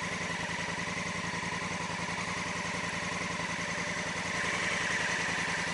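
Honda Africa Twin's parallel-twin engine running steadily at idle, a little louder from about four seconds in.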